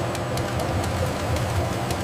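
Machinery running steadily: a low hum and rumble with faint irregular ticks over it.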